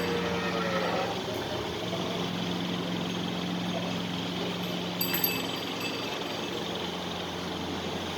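A short falling animal call in the first second, over a steady low machine hum like an idling engine. A sharp click with a bright metallic ring comes about five seconds in.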